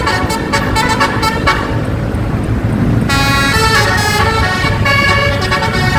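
A 12-note Basuri 'telolet' multi-tone air horn on a bus playing a quick melody of changing notes, holding a chord for about a second midway, over a low rumble.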